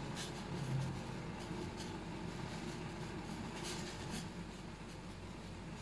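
Large steel pot of water with vermicelli (seviyan) in it boiling hard, a steady bubbling with a few faint pops.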